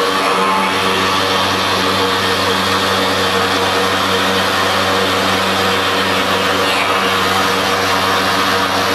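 CNC stone-machining machine cutting andesite: a steady machine hum with a continuous hiss from the tool working the stone.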